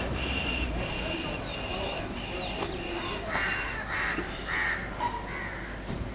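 Crows cawing, a few short harsh caws in the middle, over a high-pitched call that pulses about twice a second through the first few seconds.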